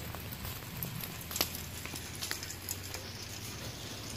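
Steady light patter of rain, with a few faint clicks, the clearest about a second and a half in.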